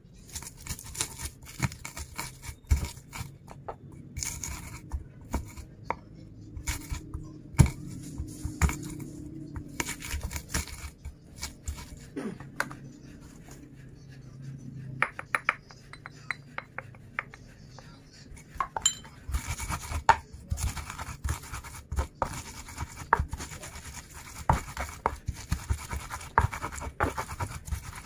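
Pestle pounding and grinding shallots and garlic in a wooden mortar (cobek): a run of irregular knocks and rough scraping strokes, easing off briefly about halfway through, then picking up again as the spices are ground in.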